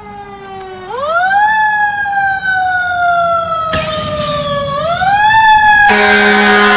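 Fire engine siren wailing: its pitch climbs quickly about a second in, slides slowly down, then climbs again near five seconds. Near the end it grows louder, joined by a steady low drone and a rush of noise.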